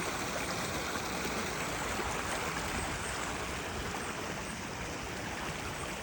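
Creek water rushing steadily, an even wash of noise with no breaks.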